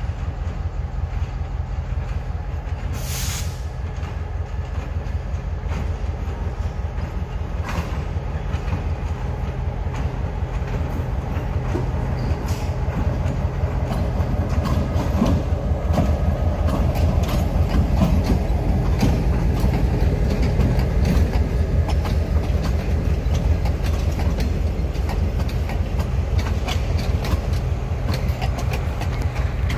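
Diesel locomotive hauling passenger coaches close past. Its engine's low drone swells as it goes by, then the coaches roll past with their wheels clicking over the rail joints.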